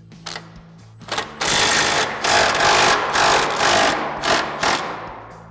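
Cordless impact wrench hammering as it loosens a rear control arm mounting bolt: a couple of short bursts, then about three seconds of continuous hammering that trails off near the end.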